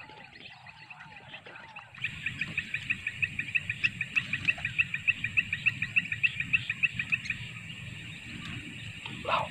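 Whistling ducks calling: a fast run of shrill whistles, about seven a second, from about two seconds in until about seven seconds in, over a low steady background noise. A short, sharp sound comes near the end.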